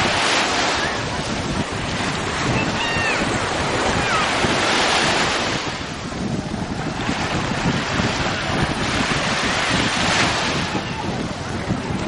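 Small sea waves breaking and washing up on a sandy shore, the surf swelling and fading every two to three seconds.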